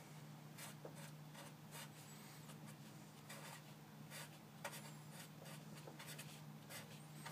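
Sharpie marker writing on paper: a series of short, faint pen strokes, with a steady low hum behind them.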